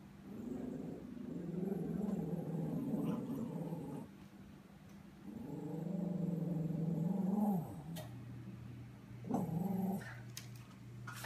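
Small terrier-mix dog giving low warning growls at something it is wary of: two long growls of several seconds each, then a brief third one about nine seconds in.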